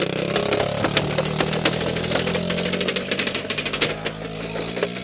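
Paintball gunfire: many rapid, uneven pops of markers firing, over a steady low hum.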